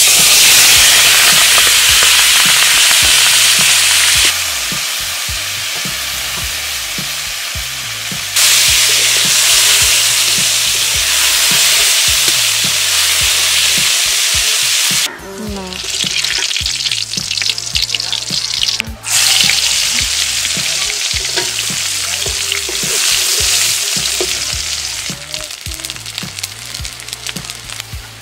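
Food frying in hot oil in a black iron kadai, first pieces of snakehead fish and later sliced onions: a loud sizzle with stirring that drops and surges again several times.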